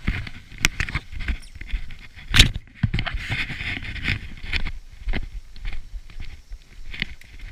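Footsteps on a concrete walkway with irregular knocks and rustles of the action camera being carried, one sharper knock about two and a half seconds in.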